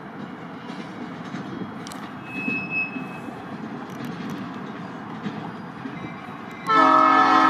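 Canadian National freight train rolling past with steady wheel-on-rail noise and a brief high-pitched wheel squeal a couple of seconds in. Near the end a multi-note locomotive air horn suddenly blasts, the loudest sound.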